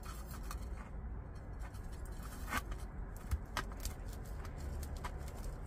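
Faint rustling and a few small scattered clicks of gravelly potting mix shifting as a succulent clump is held and settled into a small pot by hand.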